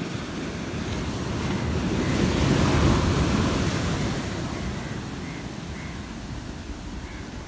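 Ocean surf: a wave breaking and washing up a sandy shore among rocks. It swells to a peak about three seconds in, then eases into the hiss of the backwash.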